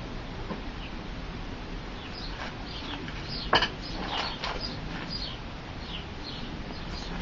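Small birds chirping in many short, high, falling notes, with one sharp click about three and a half seconds in.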